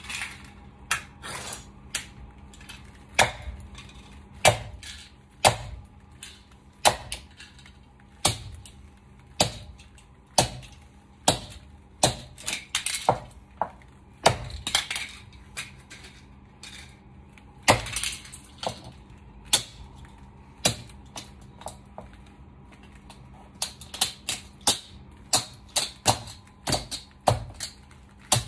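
Stiletto heels clicking on a tiled floor and stamping on small toy cars, with sharp cracks and crunches as the toy cars break. The strikes come irregularly, about one or two a second, now and then in quick clusters.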